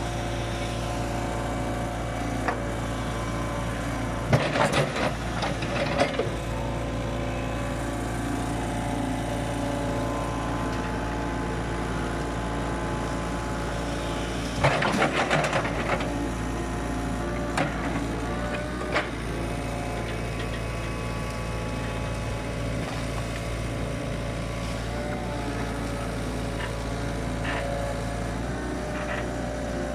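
Tracked excavator's diesel engine running steadily at close range. Two bursts of sharp clattering and cracking stand out, about four seconds in and again around fifteen seconds, with a few single knocks after that.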